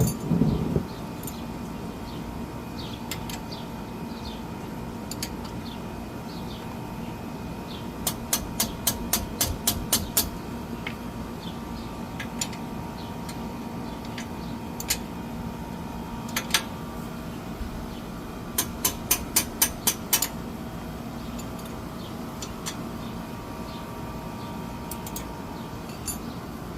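Ratchet wrench clicking in two short runs of about four clicks a second, tightening bolts on the brake assembly, with a few single clicks of tools between them over a steady background hum.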